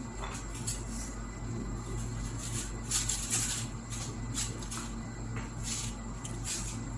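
Close-up eating sounds: irregular wet smacks and crackles of chewing, densest around the middle, over a steady low hum.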